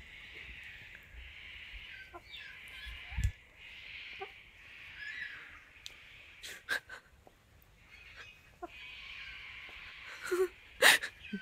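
Little corellas making soft, wheezy hissing chatter in short stretches, broken by a few sharp clicks, with one loud sharp call near the end.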